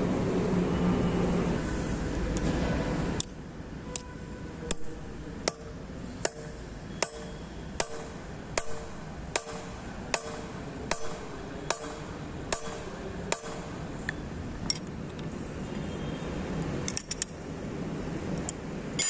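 Hammer striking the steel pin of a strike anchor set in concrete, driving it down to expand the anchor: about a dozen sharp metallic strikes, roughly one every 0.8 s, each with a short ring. Near the end come a few metallic clinks as a ring spanner goes onto the anchor's nut.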